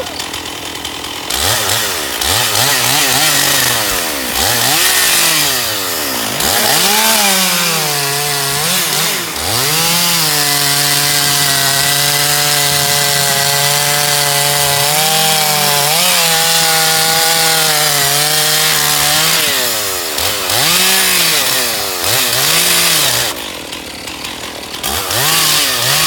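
Two-stroke gasoline chainsaw revved up and down several times, then held at a steady, lower pitch for about nine seconds while cutting through a log, then revved again. It drops briefly toward idle near the end.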